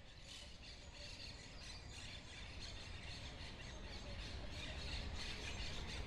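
Forest ambience fading in: birds chirping over a low background rumble, faint at first and growing slowly louder.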